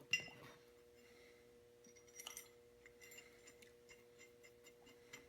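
Faint clinks and taps of small machined steel parts being handled and fitted together, a ringing clink right at the start and another small cluster a little past two seconds in, over a steady low hum.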